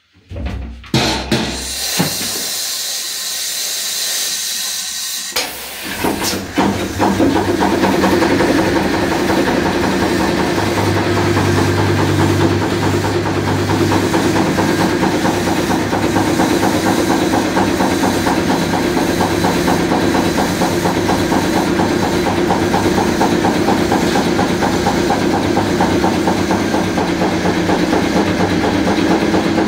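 A few knocks, then compressed starting air hissing loudly out of the air distributor of a 1954 Wichmann two-cylinder two-stroke diesel for about five seconds. About six seconds in the engine turns over on the air, fires and settles into a steady, evenly pulsing run.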